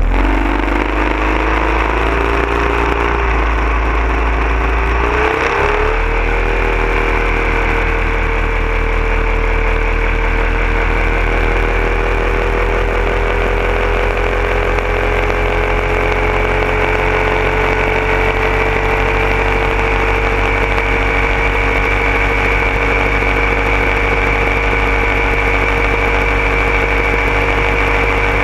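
Boat motor speeding up over the first several seconds, then running steadily at speed, with the rush of water churning in the wake.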